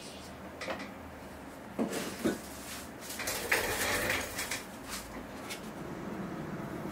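Hand tools being handled and worked against wood on a workbench: a few light knocks and clacks, then about a second of scraping a little after three seconds in, then quieter small handling noises.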